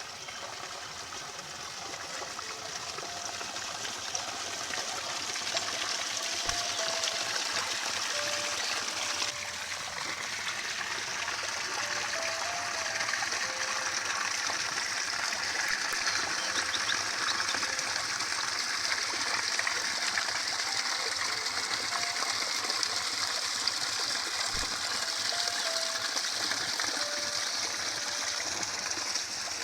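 Flowing water running steadily, a stream or irrigation channel by the rice fields, growing louder over the first several seconds as it comes nearer and then holding at an even rush.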